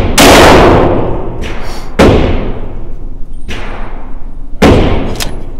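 Glock 17L 9mm pistol firing in an indoor range, with a long echo after each shot. There are three loud shots about two seconds apart, and a couple of fainter shots between them.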